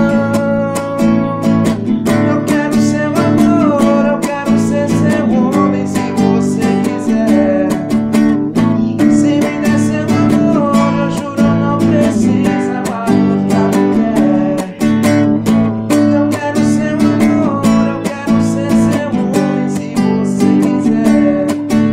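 Acoustic guitar strummed in a steady rhythm, with a melody line moving above the chords.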